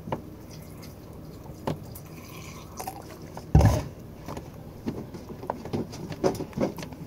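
Glue slime being stirred in a plastic tub with saline contact lens solution as activator, as it starts to clump: small sticky, wet clicks and squelches, with one heavier thump about three and a half seconds in.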